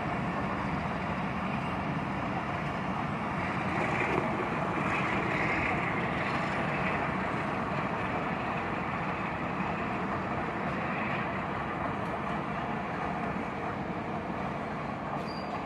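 Passenger train coaches running past on the track: a steady noise of wheels on rails, a little louder about four to seven seconds in.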